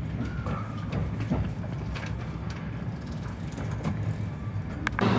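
Electric train sound: a steady low hum with scattered clicks and knocks.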